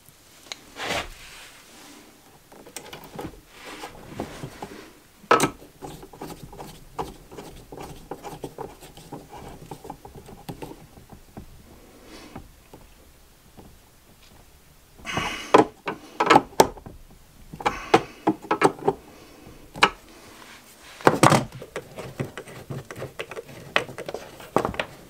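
Hands working a screwdriver and cables at the screw terminals of an MPPT solar charge controller: scattered clicks, knocks and rubbing of wire and tool. A run of louder knocks and clatter comes about two-thirds of the way through.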